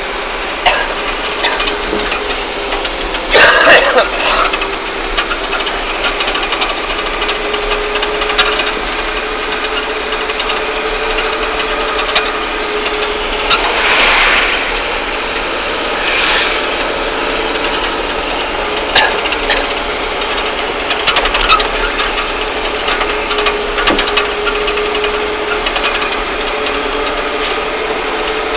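Vehicle engine running steadily, heard from inside the vehicle on the move, with scattered rattles and knocks. There is a loud burst about three seconds in and a rushing swell about fourteen seconds in.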